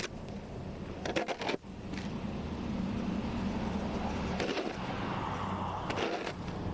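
An engine starts running steadily with a low hum about a second and a half in. A few brief scraping or knocking sounds come over it.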